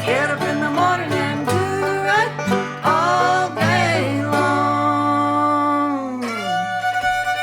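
Bluegrass band playing live: banjo and guitar over steady low notes, with sliding pedal steel lines. A long note slides down in pitch near the end.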